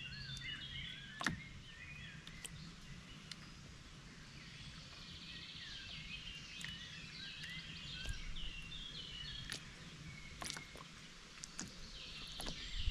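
Small songbirds singing and chirping throughout in busy twittering phrases, over a low background rumble, with a couple of sharp clicks.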